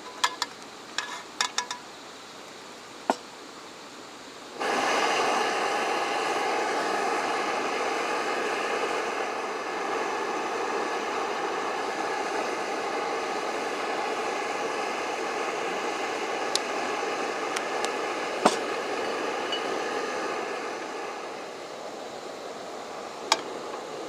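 Single-burner camping gas stove running: a steady hissing roar that comes on suddenly about five seconds in and drops a little near the end. Before it come several quick light clicks, and a few sharp ticks sound over it later.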